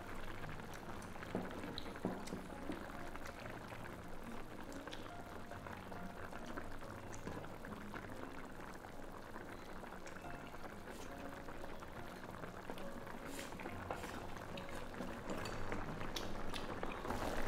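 Hot pot broth bubbling at a steady boil, with scattered light clicks.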